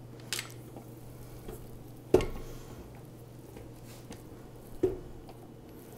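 Stand mixer being handled after mixing: three sharp knocks and clicks as its tilt head is worked and raised with the paddle. The loudest comes about two seconds in, over a faint steady low hum.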